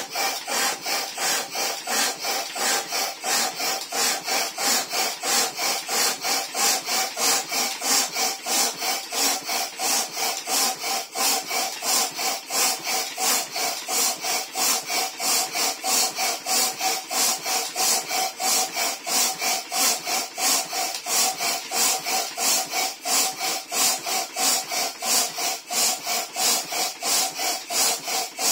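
Hand-operated floor pump worked in quick, even strokes, air rasping through it with each push and pull as it inflates a vinyl pool toy.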